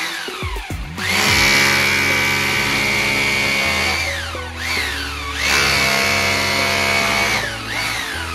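EUROPA GBH2-26 900 W rotary hammer drill, set for plain drilling, boring into a wall. Its motor whine climbs as the trigger is squeezed, holds steady, and falls away when it is let off, several times over, with a short last burst near the end. Background music plays under it.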